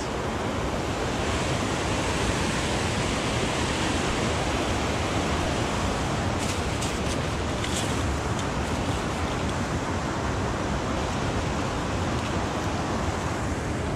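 Steady rush of water pouring over a dam spillway, an even hiss with no let-up. A few light clicks sound about six to eight seconds in.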